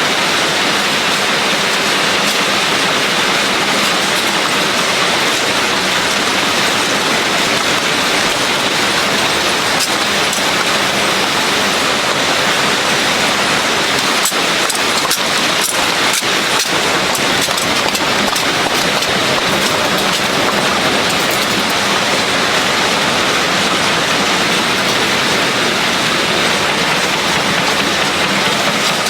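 Production-line machinery in a filter factory running with a loud, steady noise, with a short run of clicks about halfway through.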